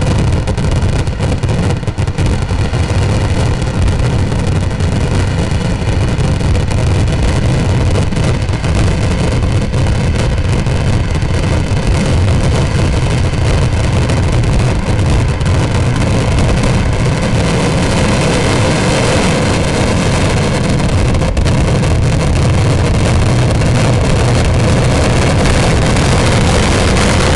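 Dense fireworks barrage: countless firecracker bangs packed so closely that they merge into one continuous rumble, with no break.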